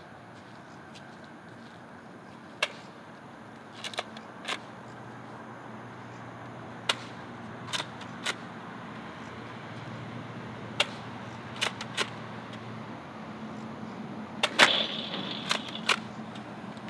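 Nerf Rival Roundhouse, a spring-powered foam-ball blaster, fired shot after shot: about a dozen sharp clacks spread unevenly, some as quick pairs, including balls striking the target; the loudest comes near the end with a short ringing tail. A low steady hum of traffic runs underneath.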